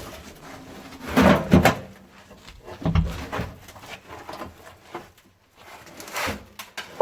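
Scuffing and scraping as a person clambers through a narrow dug-out entrance, with a louder scrape about a second in, a dull thump around three seconds and another scrape near the end.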